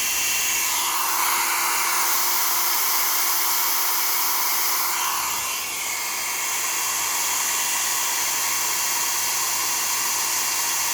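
Electric hot-air dryer blowing steadily, its fan motor humming under a rush of air, as it heats shrink tubing over a soldered wire joint. The air sound shifts and dips briefly about halfway through, then carries on steady.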